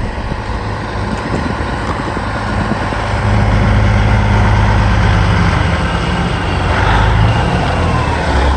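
A vehicle driving on the road: a steady low engine drone under road noise, growing louder about three seconds in.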